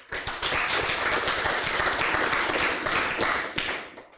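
Audience applauding, many hands clapping at once; it dies away near the end.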